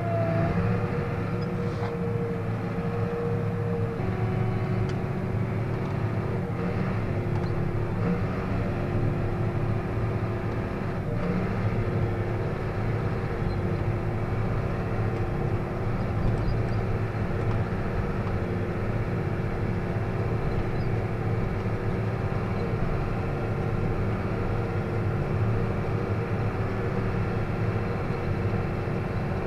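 John Deere tractor's engine running steadily under load, heard from inside the closed cab, with a steady whine over the drone.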